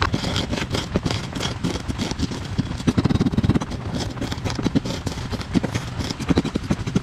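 Wooden pestle pounding and grinding coarse salt, sugar and red chili on a porcelain plate: a quick, uneven run of gritty crunches and taps against the plate.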